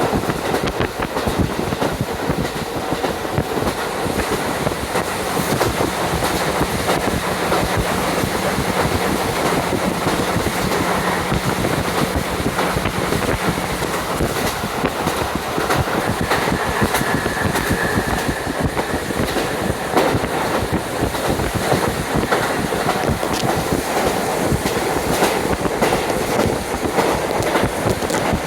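Inside a JR Hokkaido KiHa 40 diesel railcar running along the line with a window open: wind rushing in over the steady running noise, with wheels clicking over the rail joints throughout.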